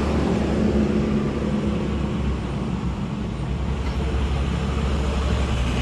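Street traffic: a motor vehicle's engine running steadily with a low hum.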